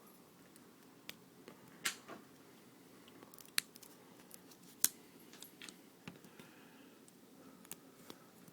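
Irregular small clicks and snips of a hand tool cutting and picking leftover plastic out of a fuel-line quick-disconnect adapter, the excess plastic that keeps the fitting from seating.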